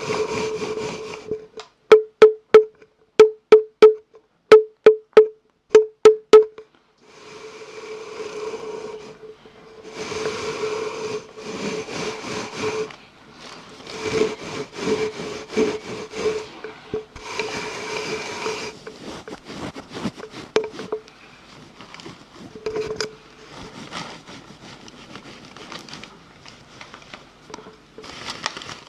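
Close-miked ASMR sounds: stretches of rubbing and scratching, broken by a quick run of about a dozen sharp, loud taps between about two and six seconds in.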